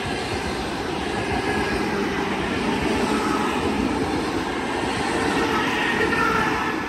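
ED4M electric multiple unit passing close by at speed: a steady rush of wheel and running-gear noise on the rails, with a faint whine near the end.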